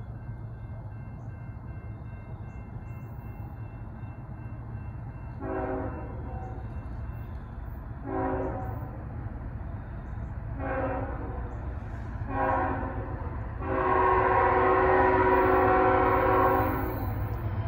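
CSX freight locomotive's air horn sounding as the train approaches a grade crossing: four short blasts about two seconds apart, then one long, louder blast of about three seconds. A steady low rumble runs underneath.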